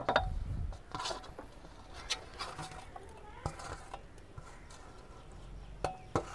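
Chopped tomato being tipped into a metal kadai of frying onions, with scattered knocks and clinks of the pan and a utensil, about one every second or so.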